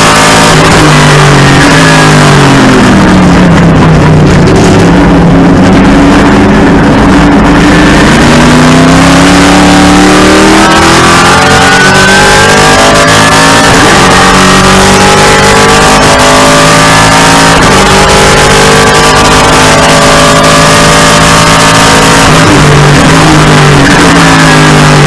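TA2 race car's V8 engine at racing speed, heard from inside the cockpit: very loud, its pitch dropping on braking and downshifts and climbing again under acceleration and through the gears, over and over.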